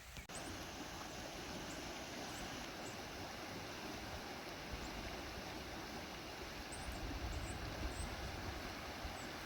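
Steady rushing of a flooded creek running high with runoff after a flash flood. Low gusts of wind buffet the microphone from about seven seconds in.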